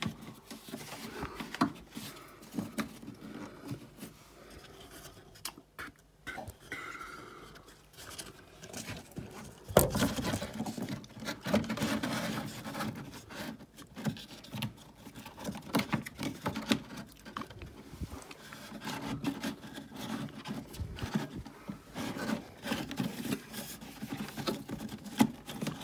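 Hands working a new pleated cabin air filter into its plastic housing: irregular rubbing, scraping and clicking of the filter frame against the housing, with a sharper knock about ten seconds in. The filter is not yet seating where it should.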